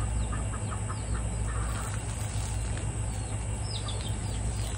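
Chickens clucking in short repeated calls over a steady low rumble, while hot cooking water is poured from a pot onto grass.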